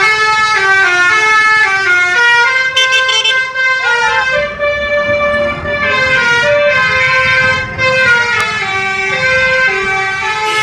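Bus 'telolet' musical air horn playing a tune in held notes that step from pitch to pitch, several tones sounding at once, over a low engine rumble.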